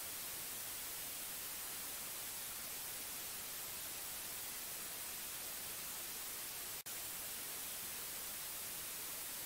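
Steady hiss of recording noise, strongest in the high frequencies, with a brief dropout about seven seconds in.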